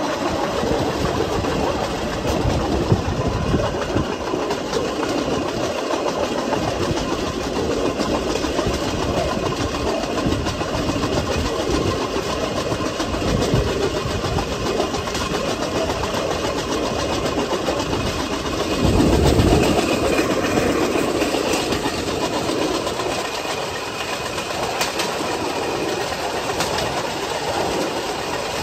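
A vélorail, a pedal-powered rail cart, rolling along old railway track: its steel wheels run on the rails with a steady noise that grows louder for a moment about two-thirds of the way through.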